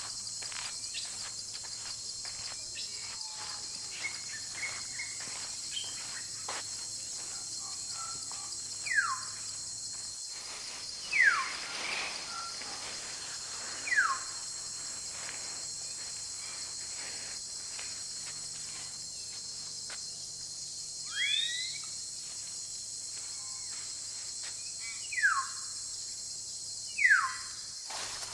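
Forest insect chorus, a steady high shrill drone, with a series of loud whistled calls every few seconds; each call slides down in pitch.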